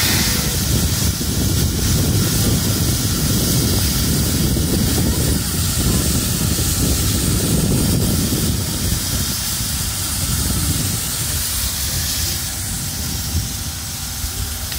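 C57 180 steam locomotive standing at the platform, steam hissing over a steady low rumble; the sound eases a little after about nine seconds.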